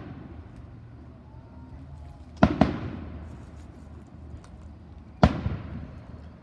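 Aerial firework shells bursting: a quick double bang about two and a half seconds in and a single bang about five seconds in, each trailing off in a long echoing rumble.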